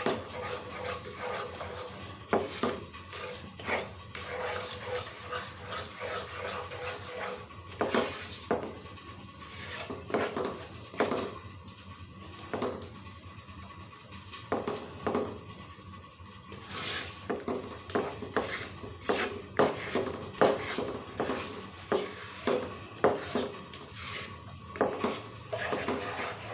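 Plastic spoon scraping and knocking against a pan while stirring a thick white sauce, in irregular scrapes and clicks.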